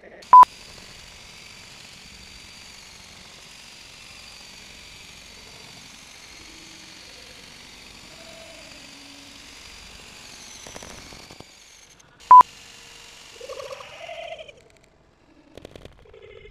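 Two short, loud electronic beeps of one steady pitch, about twelve seconds apart, each as a new recording begins: an action camera's start-of-recording beep. A steady high hiss runs between them.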